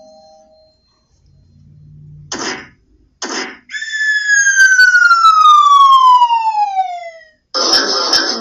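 A long whistle tone falling steadily in pitch for about three and a half seconds, after two short noisy bursts. The tail of a two-note chime fades at the start.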